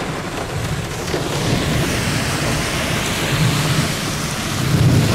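Heavy rain beating on a car's roof and windows, heard from inside the car, with low thunder rumbling under it that swells near the end.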